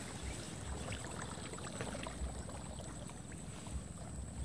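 Grass and stalks rustling as a hand pushes through them, with light handling noise and scattered small ticks.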